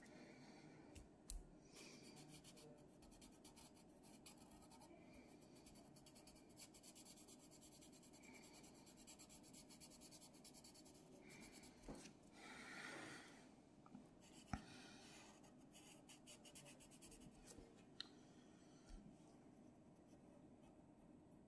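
Faint scratching of a pencil on paper as a drawing is sketched and shaded in short, quick strokes, with a longer stroke about halfway through and a few sharper ticks.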